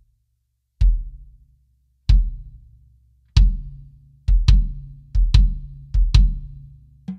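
Low drums of a Sonor Force 3001 kit struck one at a time, each stroke ringing out for about a second. The first three come slowly, then they come in quick pairs, and faster, higher-pitched strokes begin right at the end. The kit is tuned by ear to a medium tuning, on its old used heads.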